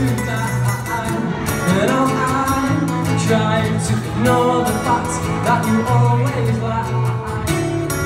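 Two acoustic guitars strumming chords together, played live over sustained low notes, in an instrumental passage of a song.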